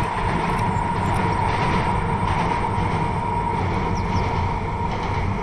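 Distant passenger train running across a long rail bridge: a continuous low rumble with a steady high-pitched tone over it.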